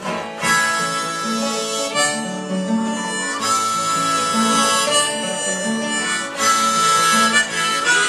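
Music: a harmonica playing long held notes over a guitar accompaniment.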